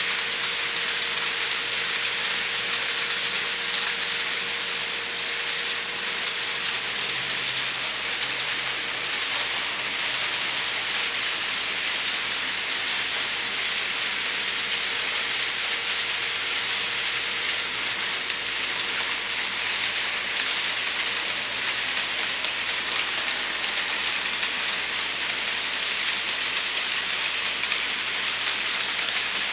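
Model trains rolling along the track: a steady hiss of small metal wheels on rail, with fine rapid ticking over the joints.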